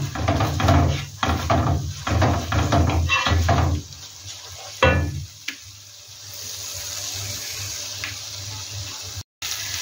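Wooden spatula stirring and scraping a thick tomato-and-onion curry sauce around a stone-coated frying pan in quick repeated strokes for about four seconds. There is a single knock of the spatula against the pan a little after that. Then the sauce sizzles softly and steadily in the pan.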